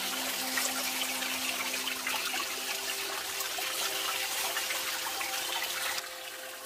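A thin stream of water trickling off a rock and splashing over hands rinsing green onions beneath it. About six seconds in it turns quieter and more distant.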